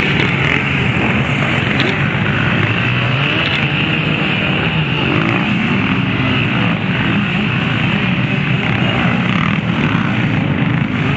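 Several off-road dirt bike engines running and revving together in a continuous, overlapping drone while the bikes climb a rocky creek bed.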